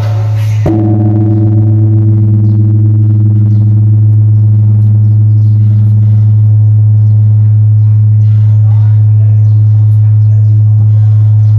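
A huge 5-ton bronze bell struck once less than a second in; its deep hum, already sounding from an earlier stroke, rings on steadily with several higher overtones above it.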